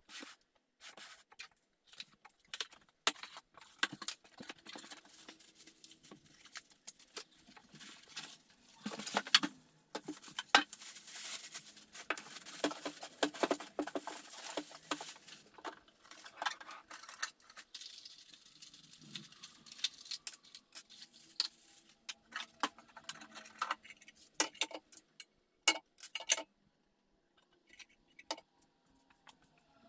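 Unboxing noise: a plastic wrapping bag crinkling and cardboard rustling, with many sharp clicks and knocks as a plastic bread maker and its parts are handled. The rustling is densest in the middle; later come scattered knocks as the lid is opened and the metal bread pan is lifted out.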